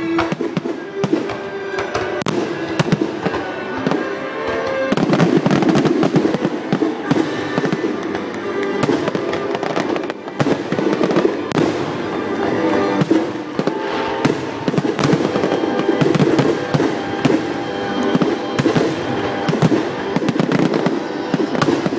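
Aerial fireworks shells bursting in quick succession, a dense run of bangs that thickens about five seconds in, over loud music.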